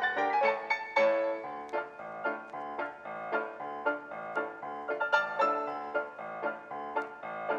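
Background piano music: a light tune of quick, plucky notes.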